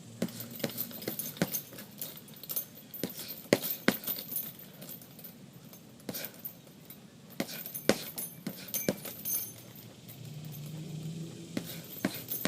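Boxing gloves striking a heavy punching bag in quick clusters of sharp hits, a southpaw combination of jab, lead hook, jab and rear uppercut thrown again and again.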